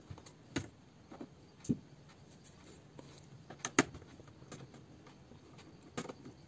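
Scattered clicks and taps of plastic parts inside a disassembled Dell Inspiron 14 3442 laptop being pressed and handled, with one sharper click a little over halfway through.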